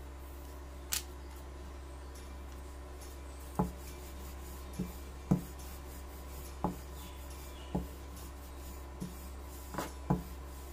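Rolling pin rolling out samosa dough on a board: soft rubbing with scattered light knocks, over a steady low hum.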